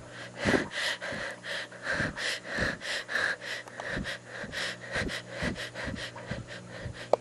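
A frightened woman breathing fast and heavily right at the microphone, about two quick breaths a second.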